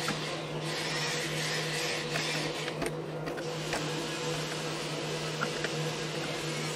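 A small power tool running steadily, shaving raised plastic bumps off the side of an old-style Bosch L-BOXX drawer toolbox, with an uneven scraping hiss over a constant motor hum.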